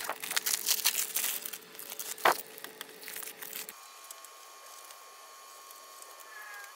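Masking paper, plastic sheeting and tape crinkling and rustling as they are pulled off by hand, with one sharp snap about two seconds in. It becomes much quieter a little past halfway, leaving only faint rustling.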